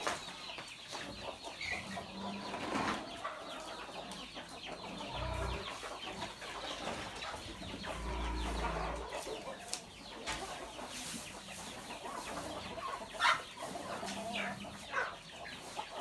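A flock of free-range chickens clucking, many short calls overlapping throughout, with a louder sharp squawk about 13 seconds in and another near 15 seconds. Brief low rumbles come in twice.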